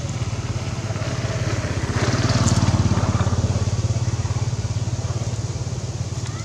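A motor vehicle engine running with a steady low, pulsing hum. It swells to its loudest two to three seconds in, then eases off.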